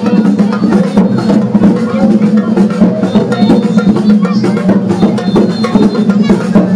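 Bumba-meu-boi group's music: steady, busy drumming and percussion keeping an even beat over a held low tone.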